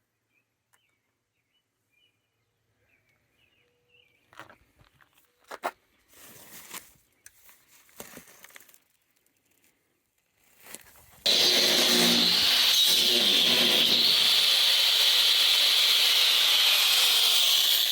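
Faint scattered clicks and knocks of work on the truck, then about eleven seconds in a loud, steady power-tool noise with a high whine starts abruptly and keeps running.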